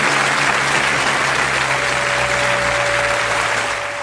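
Game-show studio audience applauding, the applause fading near the end.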